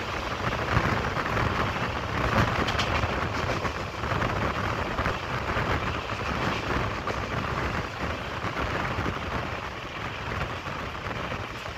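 Passenger train running at speed, heard from a coach window: a steady rush of wind and wheel-on-rail noise, easing slightly near the end.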